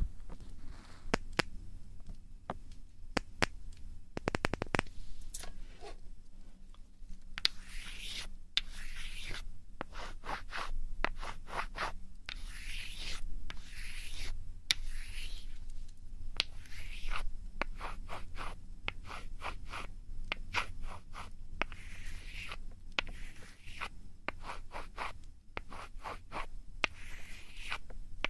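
Close-up ASMR ear-cleaning and ear-rubbing sounds: irregular scratching and rubbing strokes against the microphone, with sharp clicks and a quick run of clicks about four seconds in.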